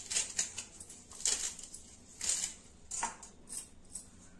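Kitchen knife chopping fresh fenugreek (methi), coriander and green garlic leaves over a steel plate, in a string of short, irregularly spaced strokes.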